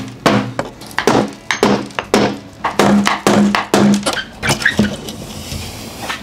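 A hammer knocking the plywood bottom shelf of an old wooden work bench loose, a quick run of sharp blows about two to three a second, each with a short low ring. Near the end the loosened board knocks and scrapes as it is slid out of the frame.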